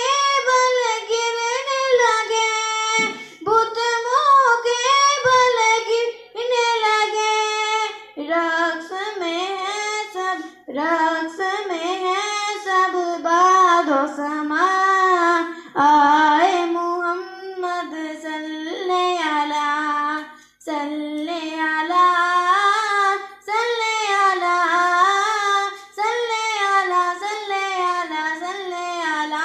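A girl singing a naat, a devotional song in praise of the Prophet Muhammad, solo and unaccompanied into a microphone. She sings in long melodic phrases with short pauses for breath between them.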